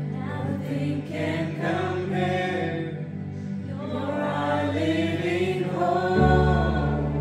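Worship music: voices singing over sustained low chords, with the chord changing about six seconds in.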